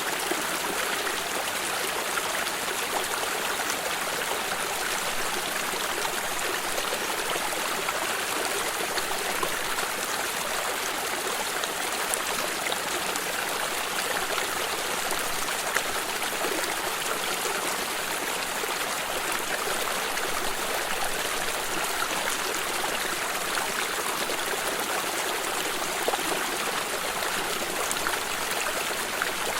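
Water stream flowing steadily, with the continuous babble and small splashes of running water.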